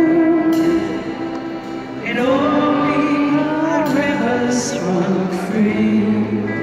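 Piano accordion sustaining chords while a woman sings a slow ballad, her voice wavering with vibrato on held notes; a new sung phrase comes in about two seconds in.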